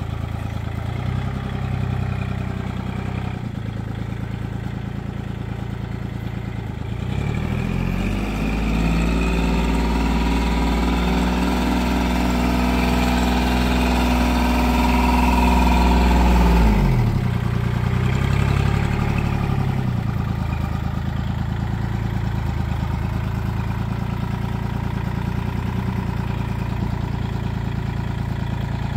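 Compact tractor's diesel engine running steadily, then revving up about a quarter of the way in, held at higher speed and loudest just past halfway, dropping back, a brief second rev, then running steadily at low speed to the end.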